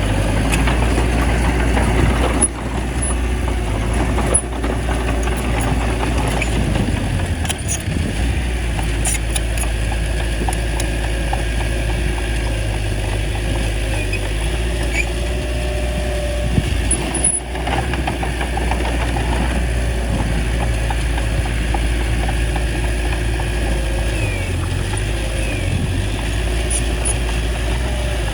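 Small bulldozer's diesel engine running steadily, with a few brief knocks over it.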